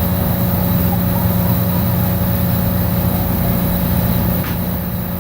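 Steady low mechanical hum of a running motor, one unchanging drone with a fainter high tone above it.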